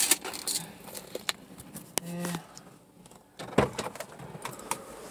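Handling clicks and rustles inside a parked car as someone shifts about and moves things, with a short low hum just after two seconds and one heavy thud about three and a half seconds in.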